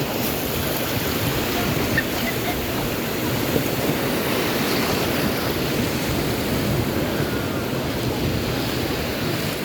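Ocean surf washing onto a beach: a steady rushing noise that cuts off abruptly at the end.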